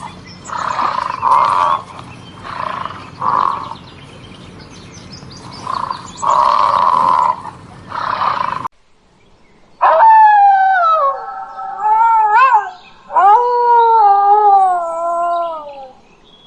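Animal calls: about a second apart come a series of harsh, noisy calls lasting roughly a second each. After an abrupt break, long pitched howling calls follow, sliding down in pitch.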